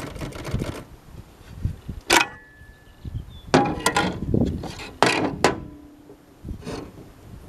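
1963 Royal Empress manual typewriter being typed on: a quick run of key strikes, one strike about two seconds in followed by a short ringing tone, then a burst of louder clacks.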